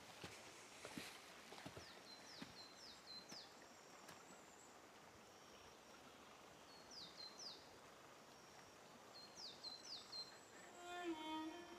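Faint outdoor ambience with a small bird giving short high chirps in quick runs of three or four, several times over. There are a few faint clicks in the first seconds, and a held music chord comes in near the end.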